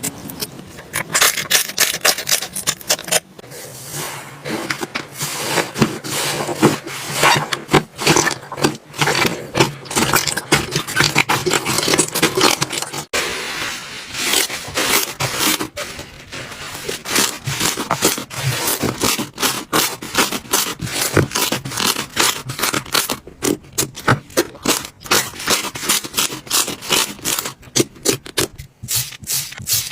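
Slime being squished and poked by hand, giving a dense run of sticky clicks, pops and crackles with brief pauses.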